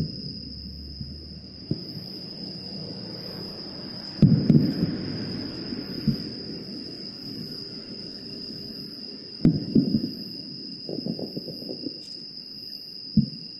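Distant fireworks shells bursting: a dull boom about four seconds in and three more later on, each followed by a rolling echo. Under them runs a steady high trill of night insects.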